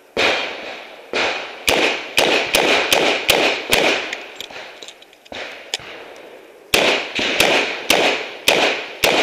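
Revolver shots in quick strings: about six shots within two seconds, a pause of a few seconds, then another rapid run of shots near the end.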